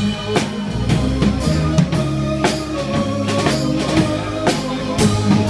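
Rock band playing an instrumental passage between sung lines: drum kit keeping a steady beat of about two hits a second under bass and electric guitar.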